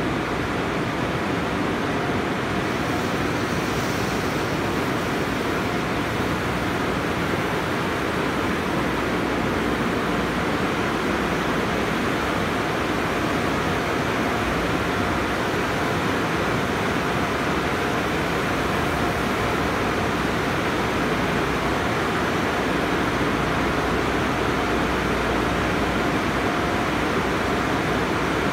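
Automatic tunnel car wash running: spinning foam brushes and hanging cloth strips scrubbing a car while water jets spray it, a steady, even rush of noise with a faint steady hum under it.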